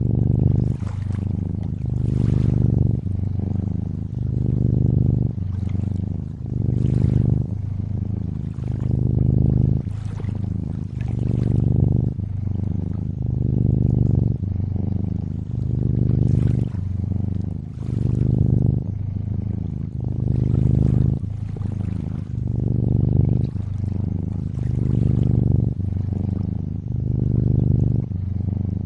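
Cat purring, a low buzzing purr that swells and eases about every two seconds with each breath, over gentle lapping and trickling water.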